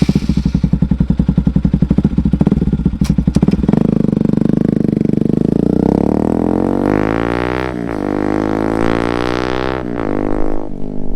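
Bajaj Pulsar NS200's single-cylinder engine through an Akrapovic exhaust, idling with a fast, even pulse, then revved up twice, its pitch climbing and dropping back each time before settling to idle near the end.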